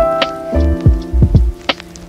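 Background music with a beat: sustained synth chords over deep kick drums and a few sharp percussive hits.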